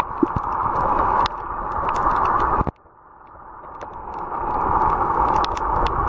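Underwater ambience picked up by the camera: a steady rushing hiss with scattered sharp clicks. The sound steps down about a second in, cuts out almost completely a little before the middle, then slowly swells back.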